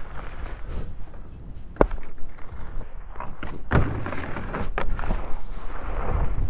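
Skis sliding and scraping over packed snow with wind on the microphone, broken by three sharp knocks, the loudest about four seconds in.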